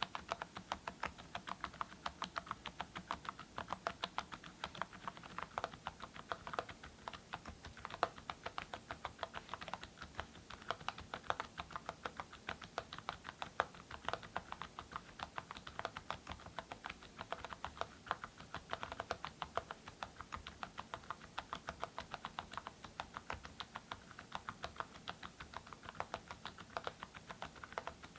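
Mechanical keyboard fitted with full-metal Awekeys keycaps on silent switches, typed on steadily at a fast pace: a dense run of short keystroke clicks, several a second.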